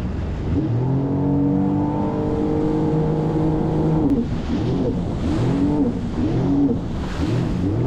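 Jet ski engine running at speed. Its pitch climbs about half a second in and holds steady, then from about four seconds in it rises and falls over and over, roughly three times every two seconds.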